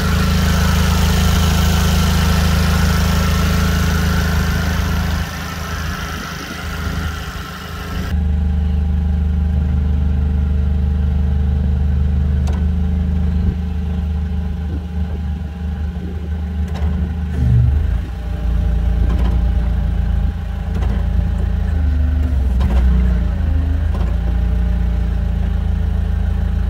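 Hangcha CPYD18 forklift's spark-ignition engine idling steadily; a couple of times later on the engine speed rises briefly as the hydraulic levers are worked.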